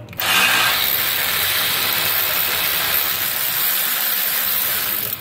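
Pneumatic air ratchet running on a suspension nut: a loud, steady hiss of exhaust air with the tool's whir, starting suddenly and cutting off about five seconds later.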